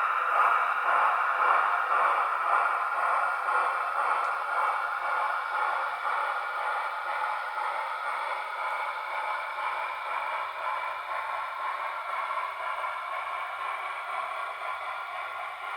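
Sound decoder of a model AD60 Beyer-Garratt steam locomotive playing steam sounds through its small speaker: a steady hiss with a faint pulse about once a second, slowly growing quieter.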